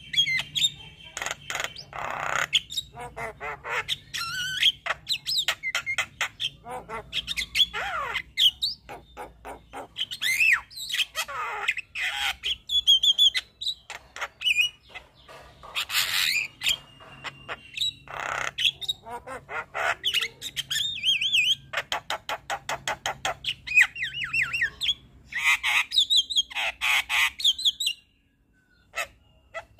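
Javan myna singing a long, varied song of harsh squawks, rapid rattling clicks and whistled up-and-down glides, full of inserted phrases. It breaks off briefly near the end.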